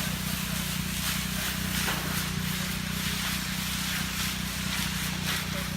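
Concrete truck's diesel engine running steadily with a low hum, with a hiss and faint scrapes above it.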